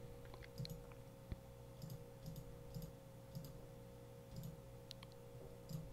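Faint scattered clicks, about ten in all, over a low steady hum in an otherwise quiet room.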